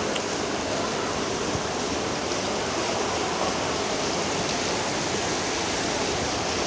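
Steady rush of falling water with no tone or rhythm in it.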